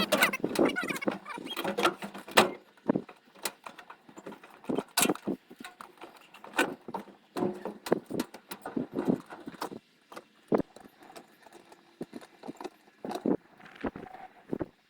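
Irregular knocks and clatter of wooden beehive boxes being handled and shifted, denser at first and sparser later.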